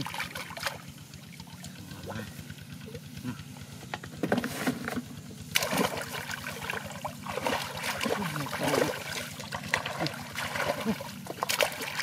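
Muddy shallow water splashing and sloshing as hands grope and scoop through it, coming in irregular bursts, the strongest a little past the middle and again near the end.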